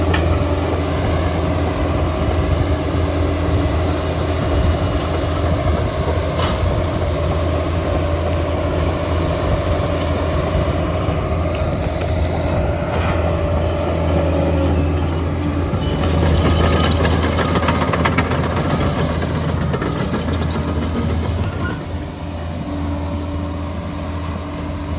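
Liebherr PR 746 crawler dozer's diesel engine running steadily under work, a low drone with a higher whine that sinks slightly about halfway through. The level eases off a little near the end.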